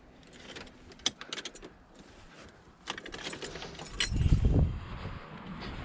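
Car keys jangling with several light clicks, and a louder low thump about four seconds in. The car's battery has just gone flat on a start attempt.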